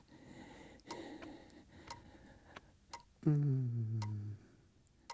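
Wall clock ticking evenly, about once a second. About three seconds in, a man's low voice gives a drawn-out sound that falls in pitch, louder than the ticks.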